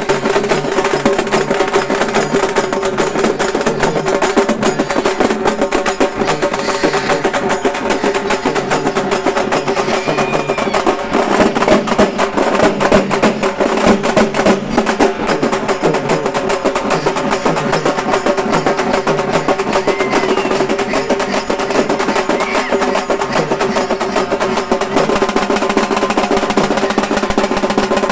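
Halgi frame drums played fast with sticks: a loud, dense, driving rhythm of rapid strokes and rolls, over a steady ringing drum-head tone.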